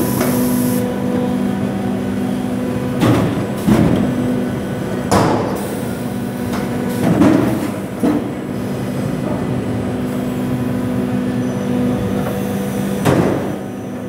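Automatic wood shavings baler with form, fill & seal bagger running: a steady machine hum with several tones, broken by a handful of loud clunks and knocks from its mechanism.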